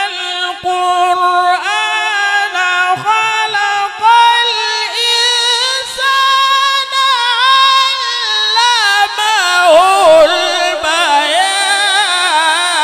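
Solo Quran recitation by a male qari in the melodic mujawwad style. One high voice holds a long, ornamented line without a break, stepping higher about four seconds in and wavering quickly near the end.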